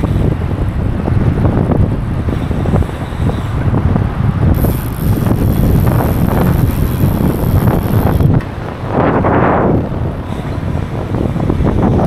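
Wind rushing over the microphone of a camera riding on a bicycle at speed, with a constant low rumble and knocks from the road. A thin high whine comes in about four and a half seconds in and stops about four seconds later.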